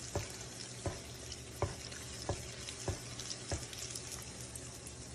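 A flour-coated egg frying in a skillet of hot grease, a steady sizzle, with light regular knocks about every two-thirds of a second that stop about three and a half seconds in.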